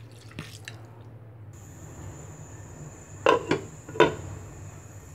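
A pan lid being set on a cooking pan, knocking against it three times in quick succession a little past three seconds in, over a faint steady hum.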